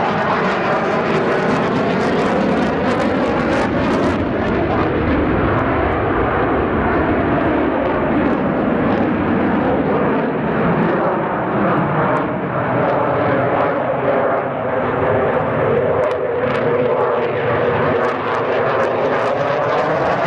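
Dassault Rafale fighter jet's twin Snecma M88 turbofans giving a loud, steady jet roar through a flypast, with a whooshing tone that slowly sweeps down and back up as the aircraft moves across.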